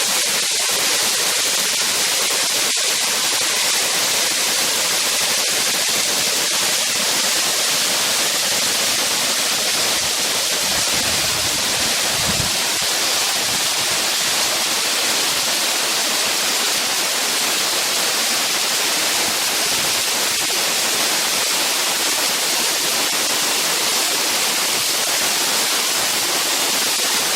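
Waterfall crashing steadily, an even, unbroken rush of falling water. About eleven seconds in, a brief low rumble rises under it.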